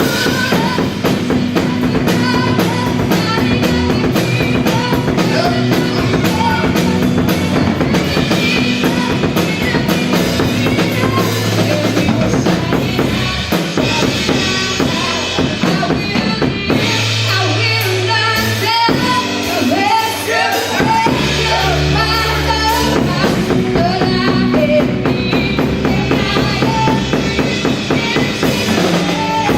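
Live gospel worship band playing an upbeat groove: a drum kit with bass drum, snare and rimshots driving a steady beat under bass guitar and keyboard.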